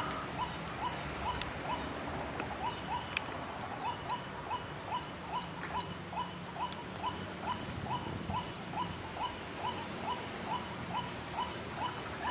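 White-breasted waterhen calling: a short, hooked note repeated steadily about two and a half times a second.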